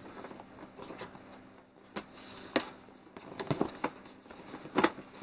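A small blade cutting packing tape on a cardboard box, and the box being handled and opened, with a few sharp clicks and taps and a short scrape.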